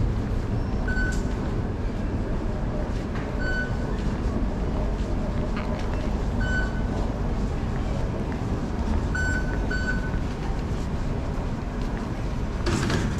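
Steady low hum of an MRT station concourse, with short, high electronic beeps from the fare gates as passengers tap through, about five in all, two in quick succession about nine seconds in. A brief rushing noise near the end.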